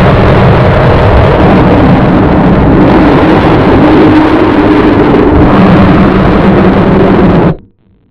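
Extremely loud, heavily distorted noise held at full volume, which cuts off abruptly about seven and a half seconds in.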